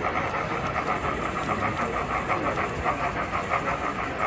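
Model Southern Pacific cab-forward steam locomotive running with its train, giving a steady rapid rhythmic chuffing.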